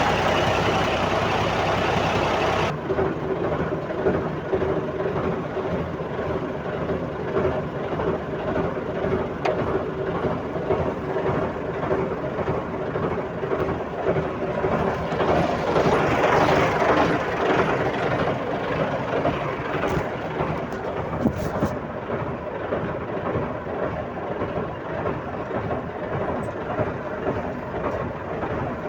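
Heavy diesel earthmoving machinery running steadily at a construction site, its engine note changing abruptly about three seconds in.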